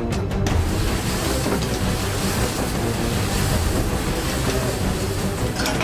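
Submarine engine-room machinery running with a steady low rumble and an even hiss, as one of its engines fails; the crew suspect a cylinder or the compressor. Music cuts off about half a second in.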